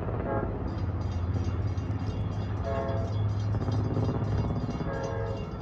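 Long Island Rail Road DE30AC diesel locomotive's K5LA five-chime horn sounding on approach: a short blast right at the start, another just under three seconds in, and a longer one near the end, over a steady low rumble. A fast, even high-pitched ringing repeats about three times a second underneath.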